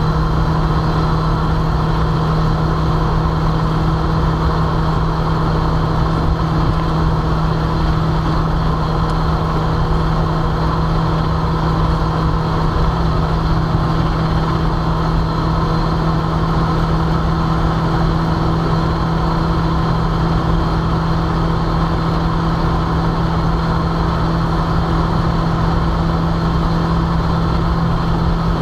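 Daihatsu K3-VET 1.3-litre turbocharged four-cylinder engine holding a steady high-rpm drone near top speed, over steady road and wind noise, heard inside the car's cabin.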